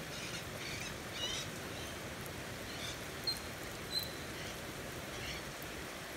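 Steady rain falling on a wooden deck, with faint short rustling and nibbling as a Pacific black duck preens its wet feathers. Two brief high chirps stand out a little past the middle.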